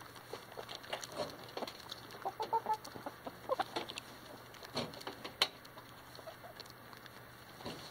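Chickens pecking scattered grain and seed from dirt close by: beaks tapping the ground in quick irregular clicks, with a few soft clucks a couple of seconds in and one sharper tap a little past halfway.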